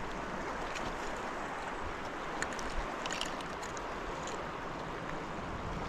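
Steady rushing of a flowing trout stream, with a few faint short clicks about two to three and a half seconds in.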